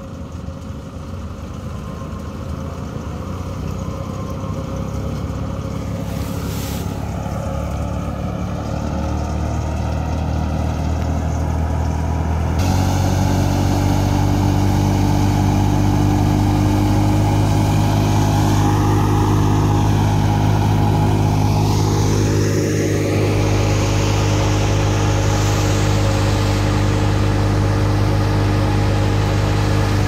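Old Fiat 640 tractor's diesel engine running steadily under load, driving a wheat thresher whose drum whirs along with it. The sound grows louder over the first dozen seconds, then holds steady.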